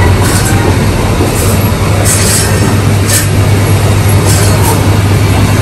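Poultry-processing machinery running with a loud, steady low hum, broken several times by short scraping, hissing bursts.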